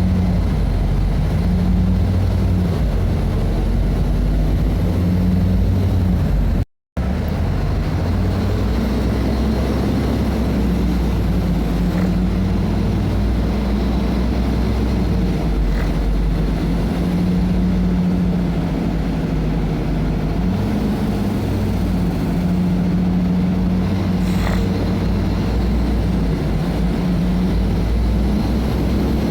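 Mercedes-Benz O500 MA articulated bus's inline-six diesel engine running steadily, its pitch rising and falling a little. The sound cuts out completely for a moment about seven seconds in.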